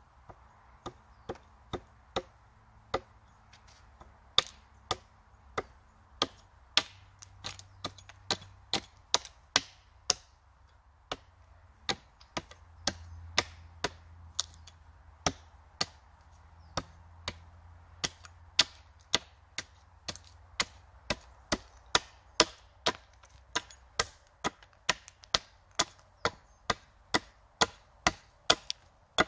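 Small hatchet chopping into the end of a wooden pole braced on a tree-stump block: a long run of sharp, separate strikes, roughly two a second at an uneven pace, with wood chips splitting off.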